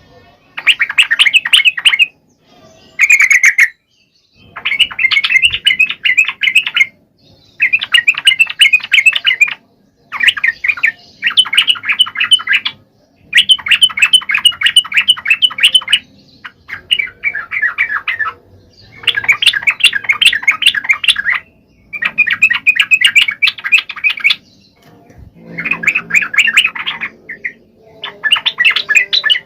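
Yellow-vented bulbul (trucukan) singing: about ten loud phrases of quick, rapidly repeated chattering notes, each phrase a couple of seconds long with short pauses between.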